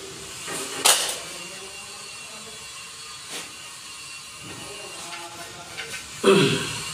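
Large floor tiles being handled and set down: a sharp knock about a second in, then a louder knock and scrape near the end as a tile comes down onto the floor, over a steady background hiss.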